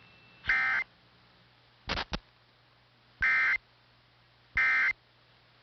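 Emergency Alert System SAME end-of-message (NNNN) code: short two-tone data bursts, each about a third of a second, three of them unevenly spaced, with a quick pair of clicks about two seconds in. This is the code that mutes weather radios at the end of a warning, here played with errors.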